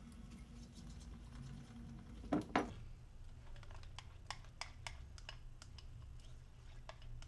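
A stir stick clicking against a glass measuring cup as liquid plastisol is stirred: two louder knocks a couple of seconds in, then a run of light, irregular clicks.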